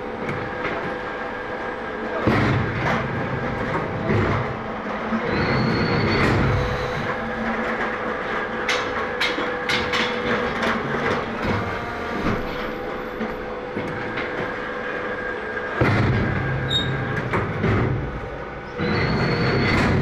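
Automatic fly ash brick plant running: a steady machine hum under continual metallic clanks and rattles as steel pallets of pressed bricks move through the hydraulic press and automatic pallet stacker. There are louder surges of low rumble a couple of seconds in and again late on.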